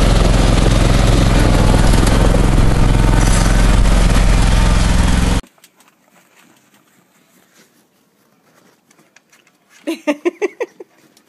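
Snow blower engine running steadily at full throttle, cutting off suddenly about five seconds in. Then near quiet, with a brief burst of quick vocal sounds near the end.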